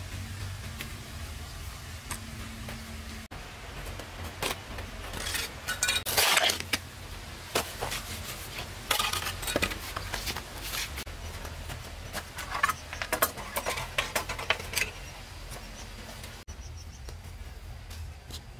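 Irregular clinks and knocks of metal kitchenware, utensils against pots and dishes, over a steady low hum.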